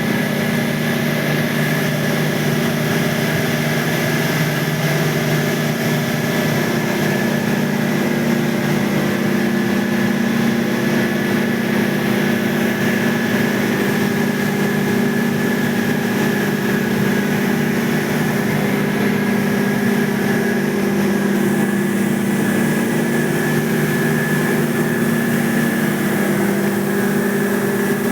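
Air-cooled condensing unit running with a steady machine hum, several unchanging tones over a constant whir.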